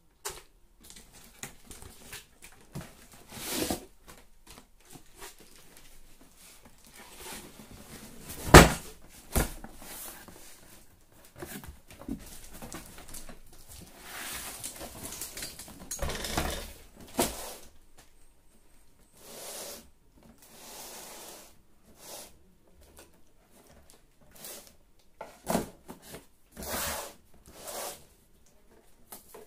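Cardboard shipping box being unpacked by hand: flaps and packing pieces rubbing, sliding and scraping against each other in irregular stretches, with scattered knocks as the cardboard is set down, the sharpest a single knock about a third of the way through.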